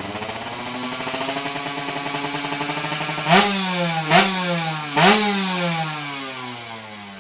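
Small motorcycle engine running, its revs creeping up, then three quick throttle blips about a second apart, each falling back, before it settles down toward idle.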